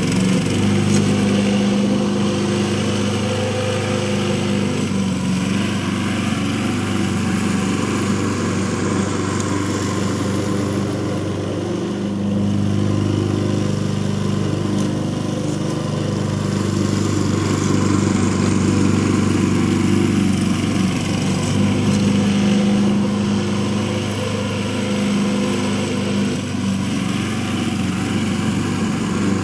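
Gas walk-behind lawn mower engine running steadily while cutting grass, its level dipping slightly and coming back as the mower moves across the lawn.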